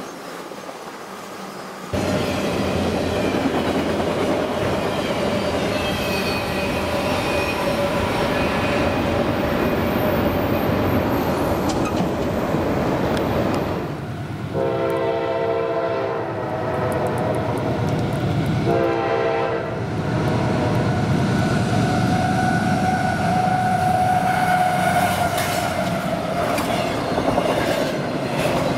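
Freight train rolling past with a steady rumble and clatter of wheels on rail. Partway through, a multi-tone locomotive air horn sounds two blasts, the first about a second and a half long and the second shorter. Double-stack container cars then roll by with a high, steady wheel squeal.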